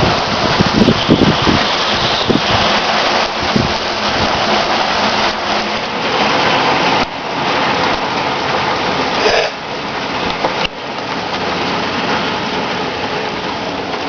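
Heavy rain falling in a windstorm, a dense steady hiss, with a few low rumbling gusts in the first few seconds.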